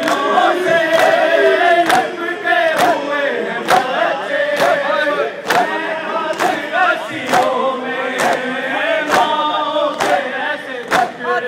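Large crowd of men chanting a Shia mourning lament in unison, with sharp, even strikes about once a second keeping time, in the manner of matam chest-beating.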